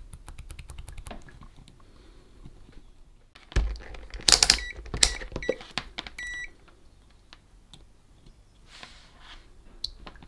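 A small slide switch clicking rapidly as it is worked back and forth, then multimeter probes handled and the meter's continuity beeper chirping several times in short bursts as the probes touch the switch contacts, a sign that the corroded switch is making contact only intermittently.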